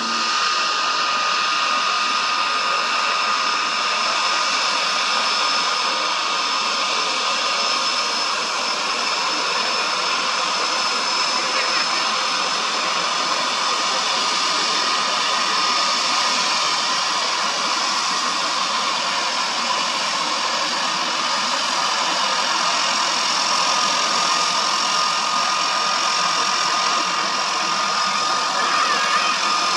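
DHC-3T Turbo Otter's Pratt & Whitney PT6A turboprop running steadily at taxi power: an even turbine hiss with a steady high-pitched whine on top.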